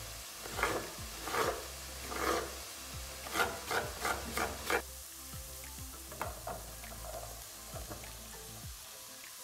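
Knife chopping zucchini on a wooden cutting board, about eight cuts in the first five seconds, the last few coming quickly. Then zucchini cubes hit a hot frying pan and sizzle, with light scraping and small clicks.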